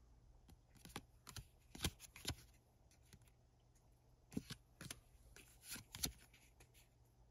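Magic: The Gathering trading cards flipped through by hand, each card slid off the front of the stack and tucked behind: about eight short, sharp card clicks and slides in two groups, with a lull of about two seconds between them.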